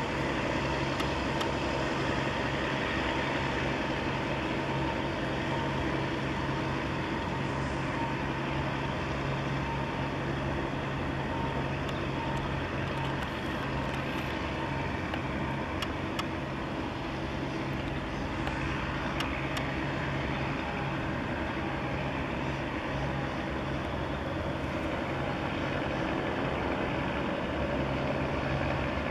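Steady low engine drone with a constant hum, under an even wash of noise, from the vessels moving through the harbour entrance.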